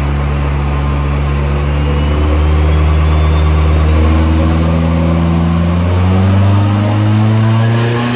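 Turbocharged Toyota 3S-GE BEAMS inline-four running under load, its note steady and then rising slightly near the end. Over it, a high whine climbs steadily in pitch.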